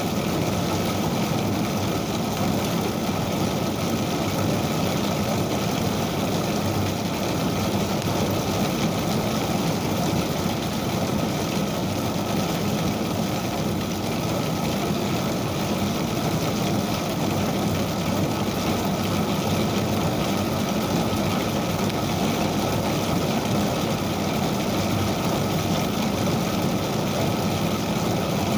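Motor-driven ijuk (sugar palm fibre) combing machine running steadily, a constant mechanical noise that does not change in level.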